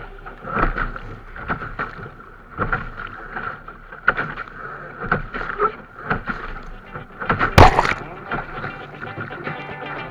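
A sailing yacht under way, with repeated irregular slaps and splashes of water against the hull over a steady wash. A single sharp knock comes about seven and a half seconds in.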